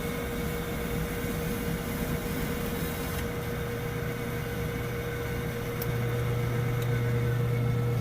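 Homemade electric-drive band sawmill running, with a steady high hum over a rushing noise. A deeper hum comes in about three seconds in and grows louder about six seconds in.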